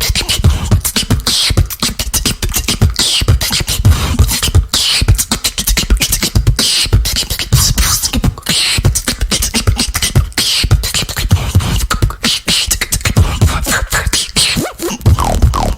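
Female beatboxer performing a fast, dense beatbox pattern: deep kick-drum sounds and rapid clicks, with a sharp hissing sound coming back about every one and a half to two seconds.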